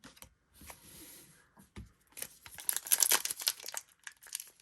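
Wrapper of a baseball card pack crinkling and tearing as it is handled and pulled open, loudest from about two seconds in, after a few soft brushing and sliding sounds.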